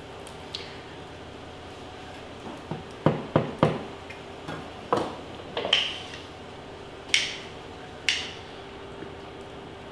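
A knife and kitchen scissors clicking and knocking on a wooden cutting board while carving a roast chicken. There is a quick run of three sharp knocks about three seconds in, then more spread about a second apart.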